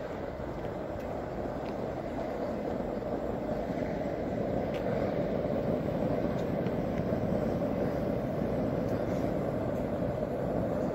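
Steady rushing roar of a gas-fed eternal flame burning, growing gradually louder as it comes closer.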